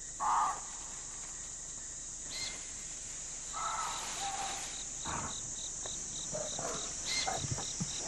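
Forest insect chorus: a steady high drone with a cricket chirping evenly, about three or four chirps a second. Two short, harsh animal calls stand out, one at the start and one about halfway through, with a few faint snaps near the end.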